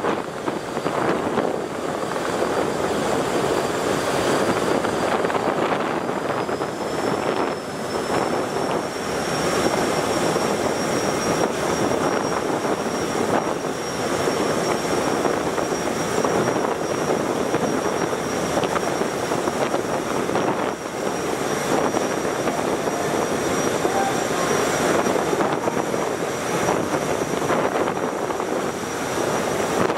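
Steady engine drone and rushing water of a large multi-deck river passenger launch passing close by on choppy water, with a thin high whine that rises slightly in pitch about seven seconds in and then holds.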